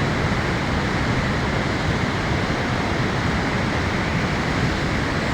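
Loud, steady rush of fast-flowing water from a rain-swollen river in flood.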